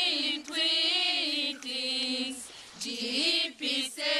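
A group of young women singing a cappella, holding long drawn-out notes, with a brief pause about two and a half seconds in before a rising phrase and shorter sung syllables near the end.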